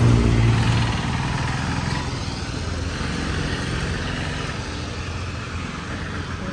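A motor vehicle's engine passing close, loudest at the start and fading over the next couple of seconds into steady street traffic noise.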